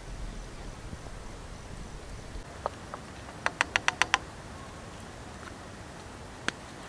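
A quick run of six sharp clicks, about six a second, with a few single clicks before and after, as small camp gear is handled.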